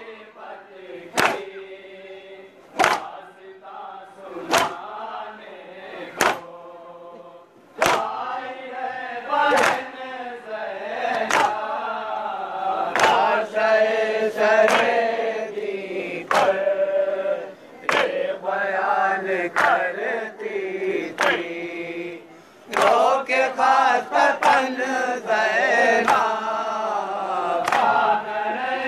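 Voices chanting a farewell noha, a Shia mourning lament, in chorus. Sharp chest-beating (matam) strikes keep time about every second and a half. The chorus swells louder about eight seconds in, and the strikes come faster near the end.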